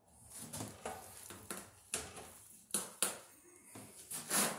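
Rustling and crinkling of Romex cable's paper wrap and plastic sheathing as the wires are pulled and handled, in a series of irregular sharp scrapes, the loudest near the end.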